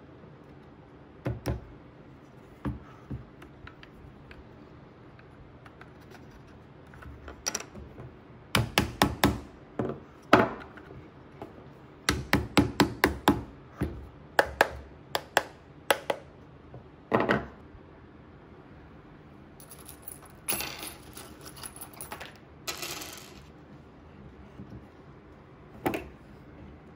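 Soft-faced mallet tapping laser-cut wooden bracket pieces onto a table leg, in quick runs of sharp knocks, several a second, with single knocks between. Around two-thirds of the way through there are a few seconds of rustling handling noise.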